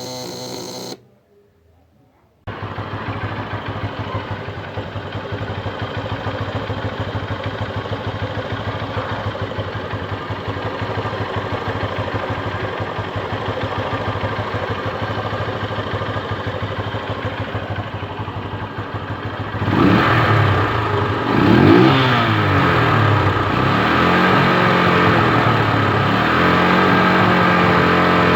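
A brief electric buzz in the first second, then a Honda CG Titan 150's single-cylinder four-stroke engine running steadily, warming up after a bump start. From about 20 seconds in it is louder and revved up and down a few times.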